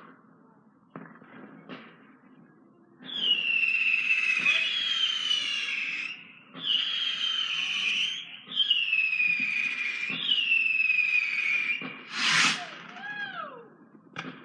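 Whistling fireworks: four long, high whistles of a couple of seconds each, one after another, each sliding slightly down in pitch, then a sharp bang near the end followed by short falling whistles. A few faint pops come before the whistles.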